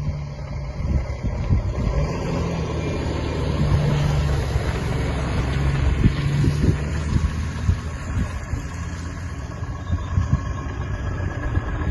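Heavy Scania lorry engine running steadily as the truck drives along, a little louder around the middle. Wind buffets the microphone throughout.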